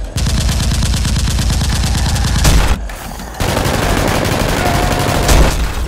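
Rapid machine-gun fire sound effect in two long bursts, with a short break a little under three seconds in.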